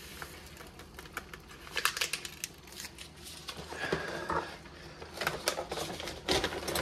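A ration sports-drink packet crinkling and rustling as it is handled, with scattered light clicks and taps.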